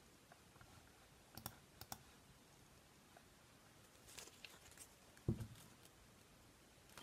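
Near silence with a few faint clicks and one soft, low thump about five seconds in.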